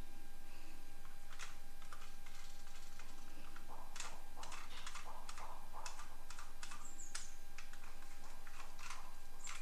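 Irregular clicking and light clattering of small hard objects being handled, starting about a second and a half in and busiest in the middle, over a faint steady tone.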